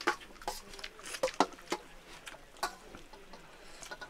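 Eating sounds: scattered light clicks and taps against steel plates as rice is mixed and eaten by hand.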